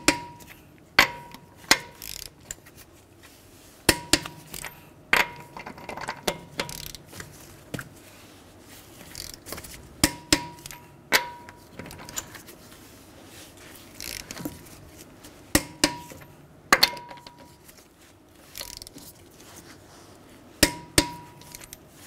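Click-type torque wrench tightening a wheel's lug nuts in a crisscross pattern, set to 94 foot-pounds. It gives a sharp metallic click with a short ring each time a nut reaches that torque, often twice about a second apart, every few seconds.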